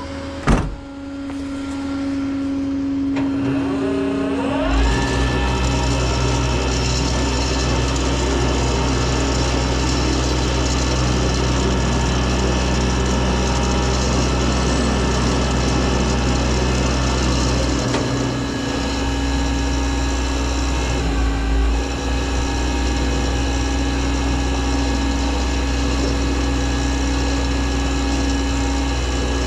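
A vehicle engine speeds up smoothly from idle to a steady fast run about four seconds in, after a sharp knock, and keeps running with a steady whine over a low hum. The run dips briefly twice in the second half.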